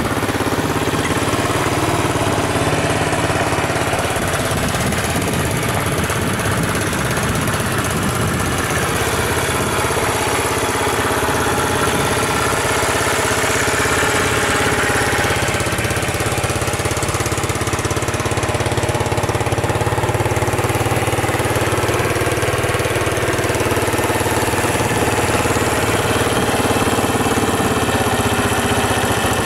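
1972 Honda XL250's air-cooled single-cylinder four-stroke engine idling steadily, just after a cold start on the second or third kick.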